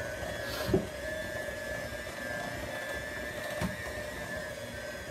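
Electric hand mixer running steadily, its beaters whipping powdered-sugar icing in a glass bowl, with two brief knocks along the way.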